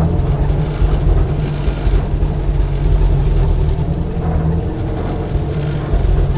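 UAZ 469 off-road vehicle driving, a loud, steady engine-and-drivetrain rumble heavy in the low end.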